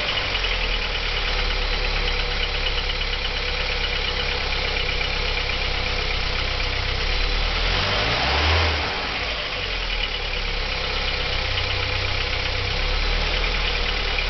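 Audi 80 B3's 1.8-litre JN four-cylinder petrol engine idling with a steady knock, its cause unknown to the owner. The revs rise briefly about eight seconds in, then settle back to idle.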